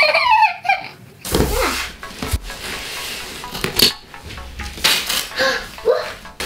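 Scissors cutting gift-wrap paper on a present, with the paper crinkling and a few sharp snips.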